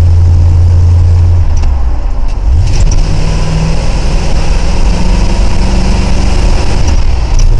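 Engine of a 1979 Ford F-150 pickup running, its vacuum leak freshly fixed. About a second and a half in, its low steady hum drops, then about a second later the pitch climbs and holds higher as the engine picks up revs.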